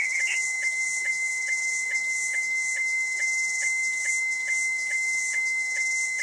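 Slow-scan television (SSTV) picture signal heard on a monitoring pocket receiver. A steady high whistle-like tone is broken by a short blip a little more than twice a second, the once-per-line sync pulses, over a constant band of hiss.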